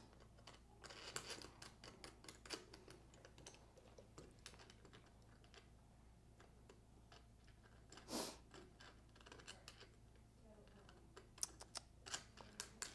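Near silence with faint, scattered small clicks and ticks of metal nuts being threaded by hand onto busbar studs over cable lugs. A brief louder scuff comes about eight seconds in.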